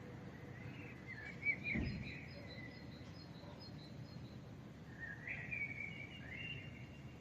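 Small birds chirping in two short bouts, about a second in and again around five seconds, over the steady low hum of a sleeping city. A brief low thump about a second and a half in is the loudest sound.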